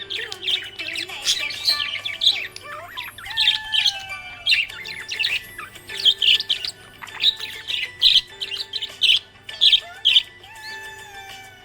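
Budgerigars chirping and chattering: a rapid run of short, sharp calls mixed with gliding whistles.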